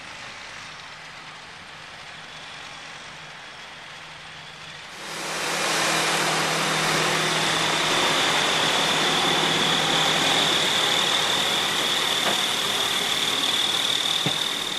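Diesel dump truck running, the one fitted with a Tireboss tire-pressure system: at first a fairly quiet steady hum, then from about five seconds in much louder and closer, a steady hiss with a high whine over it.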